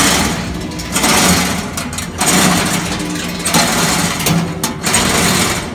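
A power tool running in repeated bursts of about a second each, stopping and starting several times, with a steady motor hum.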